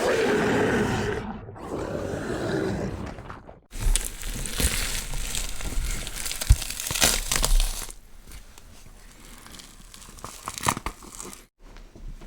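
Sound-effect monster growl: an aggressive creature roar that ends after about four seconds. After a short break comes a different effect, a dense run of noise and sharp clicks that is loud at first and then quieter, like tearing or crunching.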